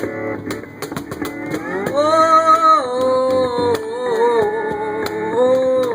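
Live acoustic guitar strumming, with a long held melodic line over it from about two seconds in that wavers up and down in pitch.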